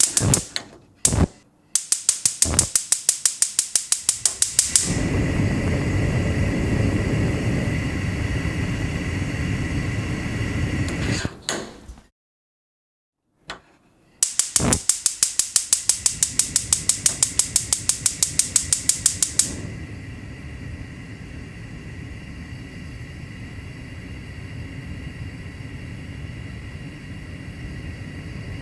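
Kitchen gas stove burner being lit twice: a rapid run of igniter clicks, about eight a second, then the burner catching with a steady rushing flame, which stops after several seconds. After a short silence the igniter clicks again for about five seconds before the flame catches and burns steadily, quieter this time.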